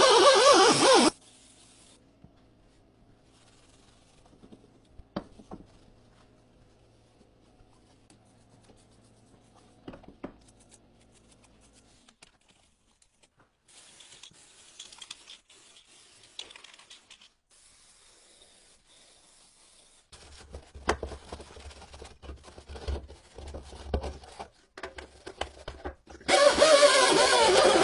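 A power tool on a wheel hub nut runs loudly for about a second at the start and again near the end. In between come faint rubs, clinks and a few sharp clicks of metal hub parts being handled as the wheel hub and bearing assembly is taken apart.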